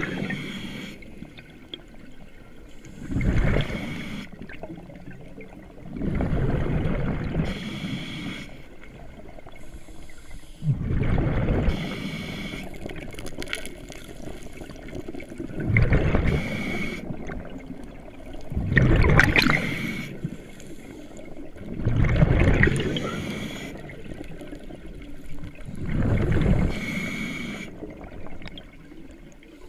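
Scuba breathing through a regulator underwater: a loud gurgling rush of exhaled bubbles about every three to four seconds, quieter in between.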